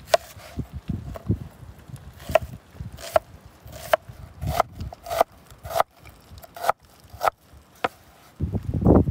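Kitchen knife cutting an onion on a wooden cutting board: the blade goes through the onion and knocks on the board in separate sharp taps, roughly one every half second to second. A louder low rumble comes near the end.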